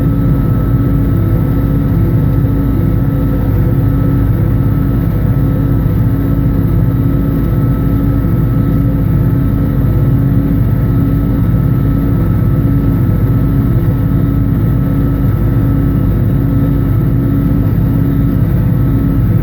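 International 986 tractor's diesel engine running steadily under load while pulling a John Deere 346 square baler baling hay, with a pulsing that repeats about once a second.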